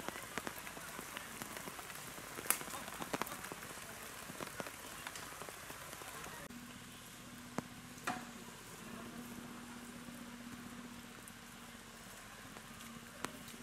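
Steady rain falling, with sharp drop hits. About halfway through it cuts to a quieter background with a faint steady low hum and a few clicks.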